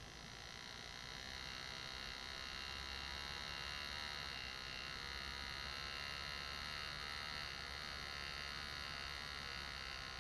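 Lindsay PalmControl pneumatic air graver running with a steady high buzz, its rapidly hammering tip cutting fine shading lines into a metal plate.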